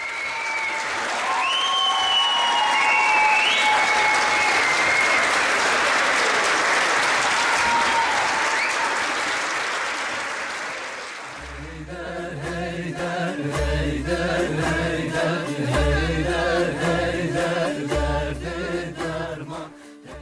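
A concert audience applauding with scattered cheers. About eleven seconds in it gives way abruptly to music with a steady bass beat.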